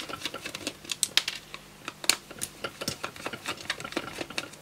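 Small screwdriver turning screws out of a plastic toy duck's housing: a run of irregular light clicks and ticks of metal on plastic, a few of them sharper.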